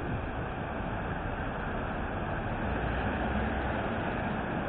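Steady outdoor city traffic noise, an even rumble and hiss with no single vehicle standing out.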